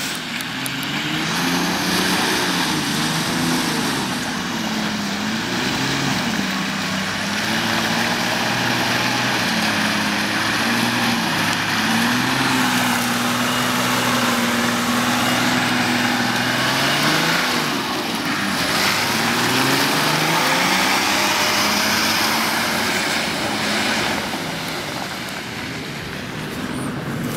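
Nissan Patrol 4x4's engine revving up and down as it drives through mud, holding steady revs for a few seconds midway, over a constant rushing noise.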